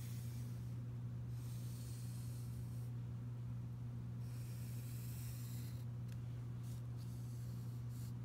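Graphite pencil scratching across paper while ruling long straight lines: two long strokes of a second or two each, then a few short quick marks near the end. A steady low hum runs underneath.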